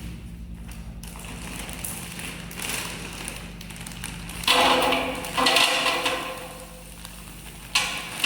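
French fries being tipped into an air fryer basket: a few sudden clattering bursts, the loudest about four and a half and five and a half seconds in, with another near the end.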